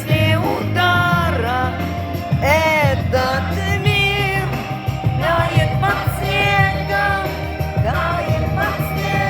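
Music: a song with a singing voice over a steady bass and beat.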